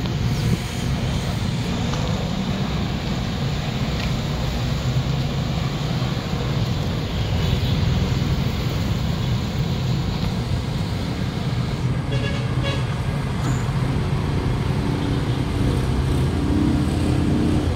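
A vehicle engine running steadily with a low rumble, and a short higher-pitched sound about twelve seconds in.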